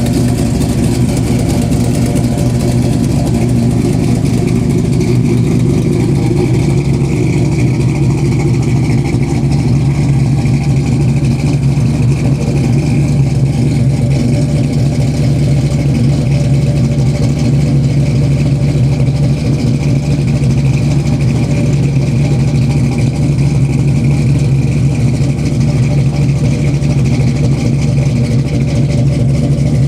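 Chevrolet 502 big-block V8 crate engine, fitted with a performance cam and an Alien intake manifold, running steadily at an even engine speed.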